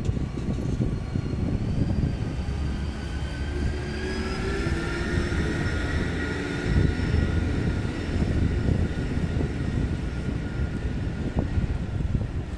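A steady, high, motor-like whine over a low rumble of wind on the microphone and street traffic; the whine rises slightly in pitch about four seconds in.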